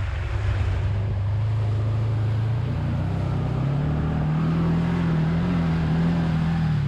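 Can-Am Commander side-by-side's engine running under way through watery mud, its pitch rising about three seconds in as it speeds up and then holding.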